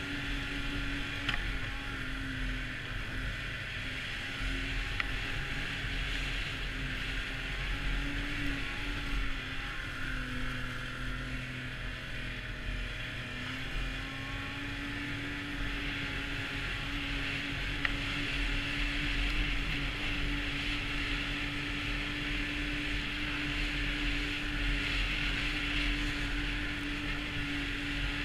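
Arctic Cat snowmobile's Yamaha 1049cc four-stroke triple running at a steady cruising pitch along the trail, over a steady hiss. The engine note sags slightly about a third of the way in, then holds steady again.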